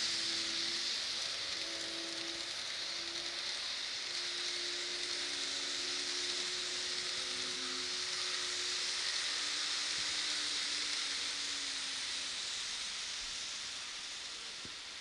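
N gauge model electric trains running on the layout's track: a steady hissing rush of wheels on rail with a faint motor hum underneath, fading as the train moves away near the end.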